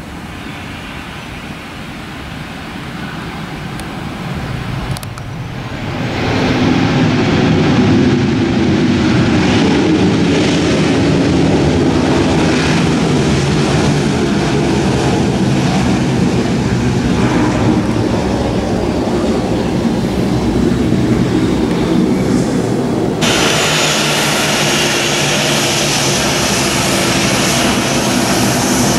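Jet engines of a Boeing 737-800 airliner at the runway, getting louder over a couple of seconds about six seconds in and then holding loud and steady. Near the end the sound changes abruptly and turns brighter at an edit.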